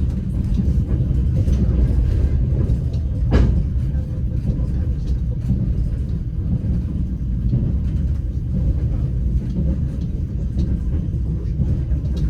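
Passenger train carriage running along the track, heard from inside: a steady low rumble of wheels and car body, with faint scattered clicks and one sharp knock about three seconds in.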